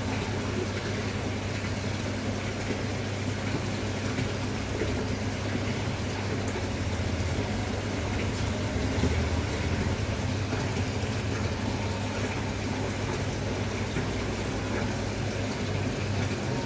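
Aquarium filter pump running: a steady rush of moving, splashing water over a low, even motor hum.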